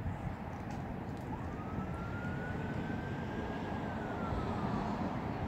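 Steady low outdoor rumble of distant road traffic and wind on the microphone. About a second in, a faint thin high tone rises, holds and climbs slowly, then falls away near the end.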